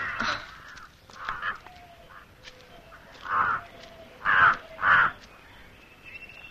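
Short, harsh bear-like grunting calls from a costumed bear character, five in all. The three loudest come about a second apart in the second half.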